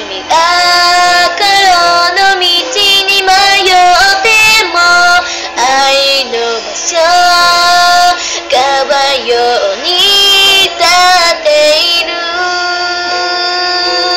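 A woman singing a Japanese pop song over backing music, holding long notes that bend between pitches.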